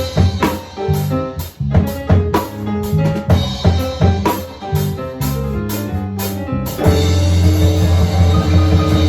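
Drum kit playing together with a pitched instrument's melody and bass line. About seven seconds in, the drumming stops and a low chord is held.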